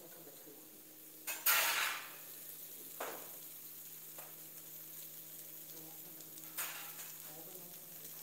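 Prawn and vegetable kebab skewers sizzling faintly on a stovetop grill pan, with two short louder hisses and a couple of clicks. A steady low hum runs underneath.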